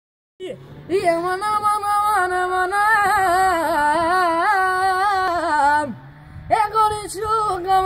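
A boy singing solo in a high voice, holding long notes decorated with wavering ornaments that slide up and down. The phrase ends about six seconds in with a falling slide, and after a brief pause he starts the next phrase.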